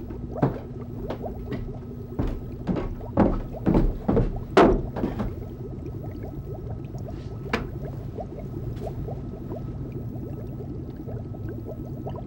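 Footsteps thudding down wooden basement stairs, about two a second, stopping after about five seconds. A steady hum with a faint high tone follows, and a couple of light clicks.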